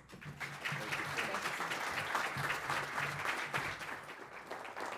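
Audience applauding: many people clapping together, steady and even.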